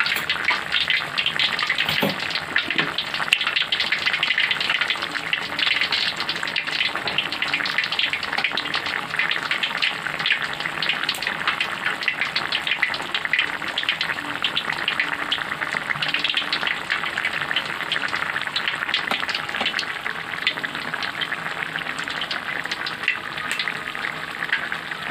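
Sliced red chilies, shallots and garlic sizzling in oil in a wok: a steady, dense crackle of tiny pops.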